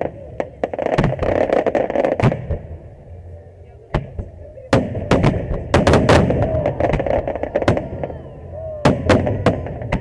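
Fireworks display: aerial shells bursting overhead in rapid volleys of loud, sharp bangs, in a cluster about a second in, a denser run from about five to eight seconds in, and a few more near the end.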